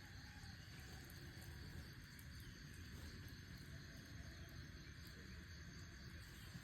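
Near silence: faint low rumble and background hiss, with a few faint ticks.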